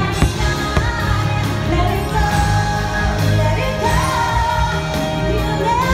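Fireworks show soundtrack: a song with singing over a steady bass, with a couple of sharp firework bangs under it in the first second.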